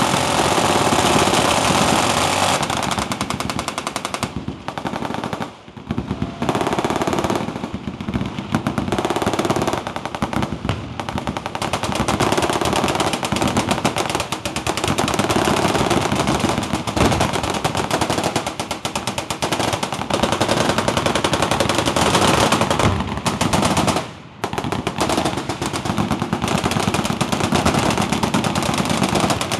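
Massed automatic fire from many machine guns, miniguns among them, firing together in a dense, almost unbroken stream of shots. The fire thins briefly twice, about six seconds in and again near twenty-four seconds.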